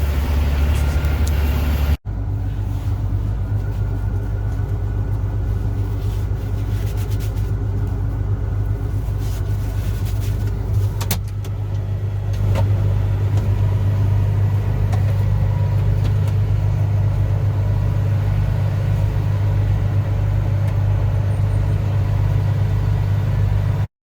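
Combine harvester's engine running steadily as the machine is driven, a constant low hum, with a brief abrupt break about two seconds in.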